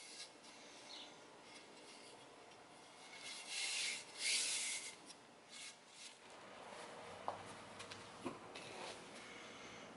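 Hand tool scraping and shaving along a wooden axe handle in a series of strokes, the two loudest a little past three and four seconds in. About six seconds in the strokes stop and a quieter room sound follows, with a few light taps.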